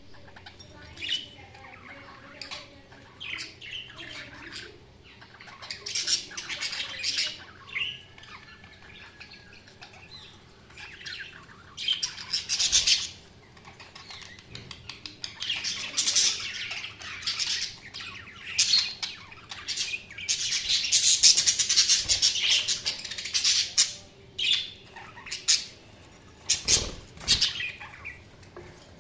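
Budgerigars chirping and chattering in irregular bursts with short gaps, building to a long, dense stretch of chatter about two-thirds of the way through.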